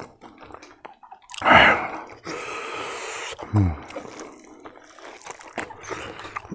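Close-up wet eating sounds: lip smacks and chewing clicks from a mouthful eaten by hand. About one and a half seconds in comes a loud hum that falls in pitch, followed by a second of breathy noise, and a shorter falling hum comes about three and a half seconds in.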